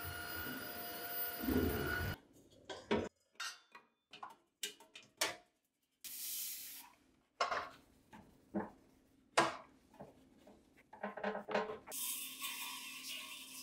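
A cordless stick vacuum runs for about two seconds and stops. Then a short spritz from a spray bottle about six seconds in, light clinks and knocks of stainless-steel kitchenware, and near the end a hiss of sodium percarbonate powder poured into a stainless bowl.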